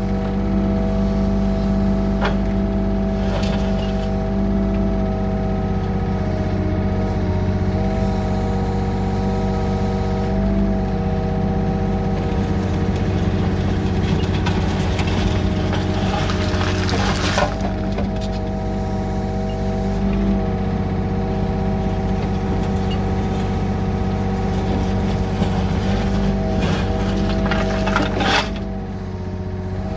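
Yanmar B37 mini excavator's diesel engine running steadily under hydraulic load, with the bucket scraping and dragging crushed gravel a few times, longest just past the middle and again near the end.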